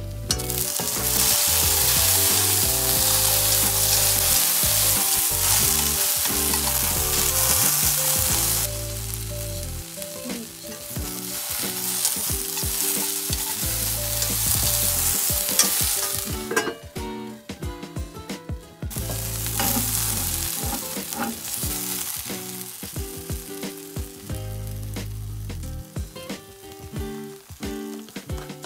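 Lotus root slices sizzling as they fry in a frying pan, the sizzle jumping loud about a second in as the pan's lid comes off. Through the middle and later part it dips and swells, with clicks and scrapes of a wooden spatula stirring the slices.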